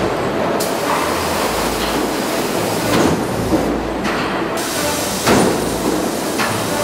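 Automated stamping press line with transfer robots running: a steady industrial rumble and hiss, broken by sharp metallic clanks about three seconds in, half a second later, and again just past five seconds.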